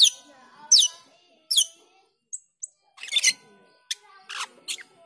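Asian glossy starling (jalak keling) calling: three sharp, steeply falling whistles about a second apart, two short high peeps, then a string of harsh, chattering notes.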